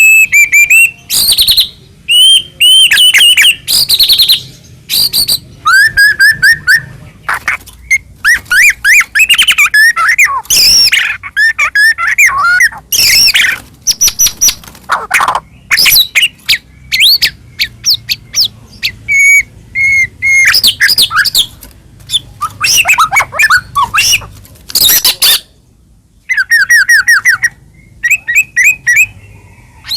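White-rumped shama (murai batu) singing loudly and without pause, a rapid, varied run of clear whistles, quick trills and harsh rasping notes in short phrases with brief gaps.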